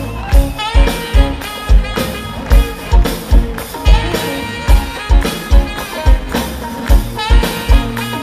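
Live rock band playing an instrumental passage: a saxophone lead over a steady kick-drum beat, electric bass and guitars.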